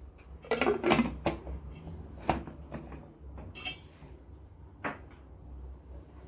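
Metal pressure cooker lid being fitted and closed on the pot: a run of metal clanks and knocks, the loudest cluster about a second in, then a few single knocks.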